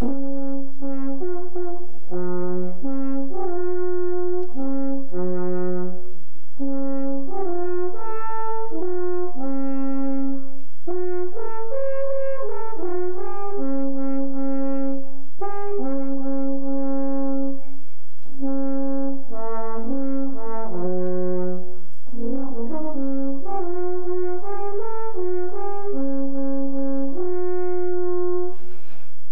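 Alphorn playing a slow solo melody: a single line of held notes in short phrases, ending on a long held note.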